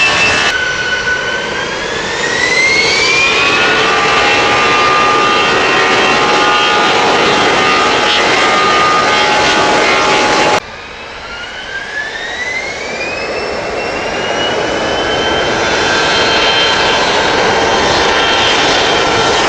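Airliner jet engines spooling up to takeoff power: a whine rising in pitch that levels off into a loud, steady run. After an abrupt cut about ten seconds in, the same spool-up comes again.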